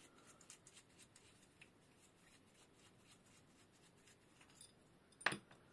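Mostly near silence with faint small clicks and rubs as a screwdriver works the bolts on the metal clamps of a scissor-sharpening jig. One sharp metal click about five seconds in.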